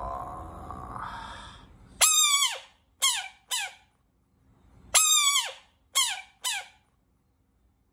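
Bullfrog distress screams: loud, high-pitched calls given with the mouth wide open, each starting sharply and falling in pitch at its end. They come in two groups about three seconds apart, each one longer call followed by two short ones. Before them, a fainter, lower sound fades out over the first two seconds.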